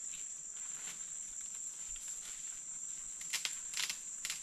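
Steady high-pitched drone of rainforest insects, with a few short sharp knocks or rustles in the last second and a half.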